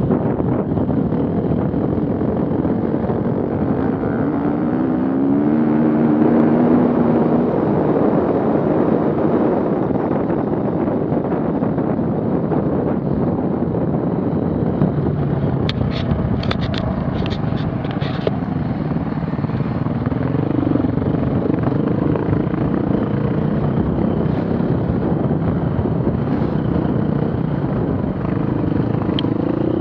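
Off-road vehicle engines running steadily, one revving up with a rising pitch a few seconds in. A quick run of sharp clicks comes about halfway through.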